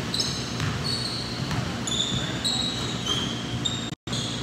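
Basketball being dribbled on a gym floor, with repeated short, high-pitched sneaker squeaks as players cut and stop. The sound drops out for an instant about four seconds in.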